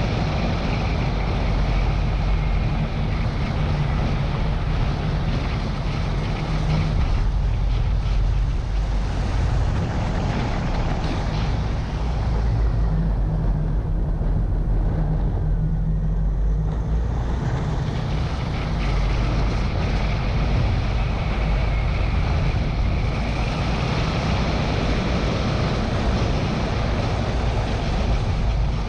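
Car driving along a narrow road, with steady engine and tyre noise and wind buffeting the microphone mounted on the bonnet. The sound eases off for a few seconds around the middle as the car slows through a bend, then picks up again.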